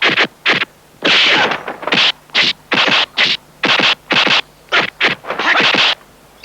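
Dubbed kung fu fight sound effects: a rapid run of punch and kick hits, about a dozen in quick succession, mixed with a few longer swishes.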